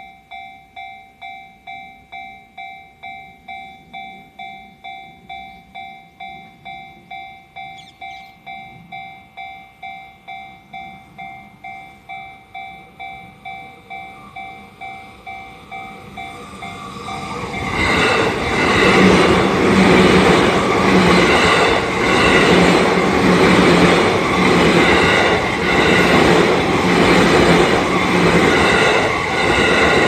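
Japanese level-crossing warning bell ringing with a steady electronic ding about twice a second. About 17 seconds in, a Yamanote Line E235-series electric train comes through close by and drowns the bell out, loud, its wheels clattering in a steady rhythm over the rail joints.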